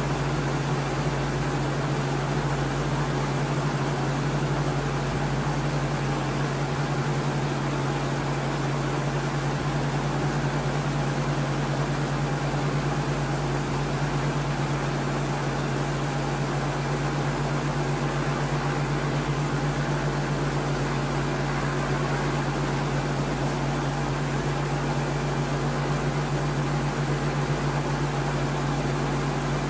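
Steady drone of a helicopter: a constant low hum under an even hiss, unchanging throughout.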